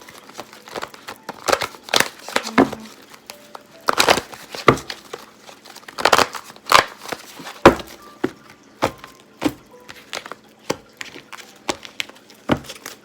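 A deck of tarot cards being shuffled by hand: irregular snaps and flicks of cards against one another, with a light rustle in between.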